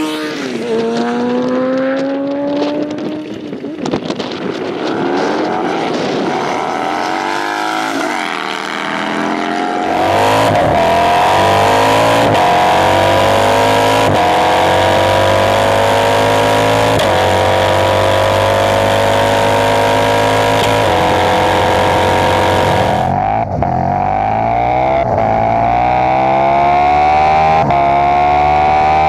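V-twin motorcycle engines, a Harley-Davidson bagger and a Buell 1125, revving and pulling away hard. They are then heard onboard accelerating through the gears at full throttle: the engine pitch climbs and drops back at each upshift, over a steady rush of wind. The sound changes abruptly about two-thirds of the way through, as the onboard audio switches bikes.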